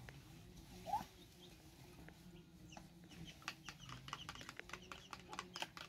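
A chicken gives one short rising cluck about a second in. In the second half there is a quick run of sharp clicks and taps mixed with faint high chirps.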